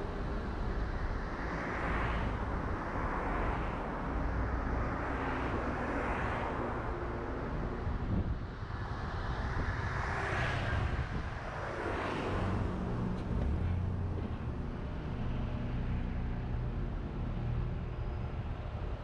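Car driving on a town road: a steady low rumble of engine and tyres, with about six louder whooshes that swell and fade as other vehicles pass.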